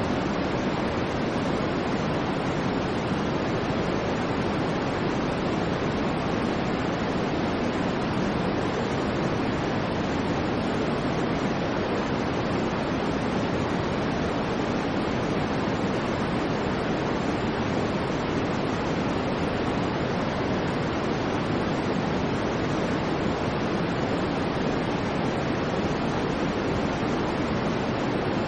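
Steady synthetic white noise for sleep: an unchanging, even hiss, fuller in the low-middle range than in the treble.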